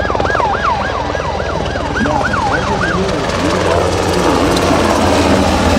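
An emergency siren sounding a fast yelp, rising and falling about three times a second, over the steady low beat of a fire-department helicopter's rotor. After about three seconds the yelp changes to a slower, lower wail.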